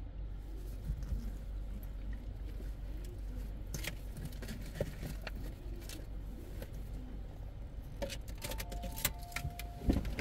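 Steady low hum with scattered light clicks and rattles, and a short two-tone electronic beep about nine seconds in.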